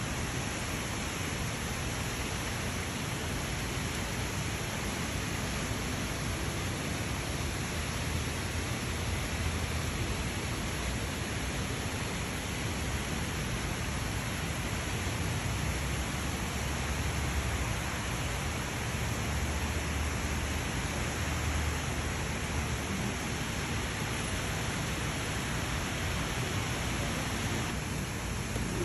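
Rain falling steadily over the city, an even hiss with a low, uneven rumble underneath.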